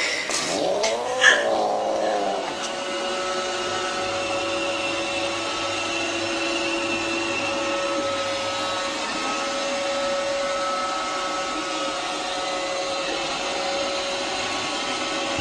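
A cat gives one long, wavering meow for about two seconds. Then a robot vacuum cleaner runs with a steady hum of several held tones.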